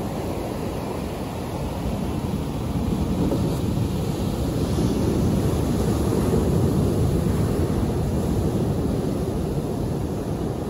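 Sea surf: medium waves breaking and washing against a large rock on the shore, a steady low rumble of water that swells about three seconds in.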